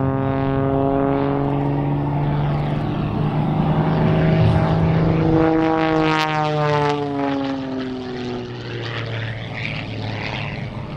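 Propeller engine of an MXS aerobatic plane droning in flight. It grows louder toward the middle, then drops in pitch as the plane passes and fades slightly near the end.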